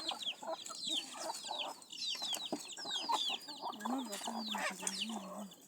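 A flock of chickens calling: many quick, high peeps that slide down in pitch, overlapping. A lower, wavering hen call comes in near the end.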